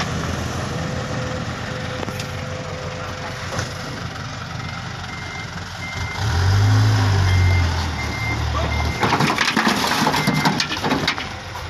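Dump truck reversing: its diesel engine revs up hard for a couple of seconds about halfway through, while the reversing beeper sounds a steady run of short beeps. Near the end, the tyres crunch and grind over stones and sand-gravel fill laid in the soft, rutted ground.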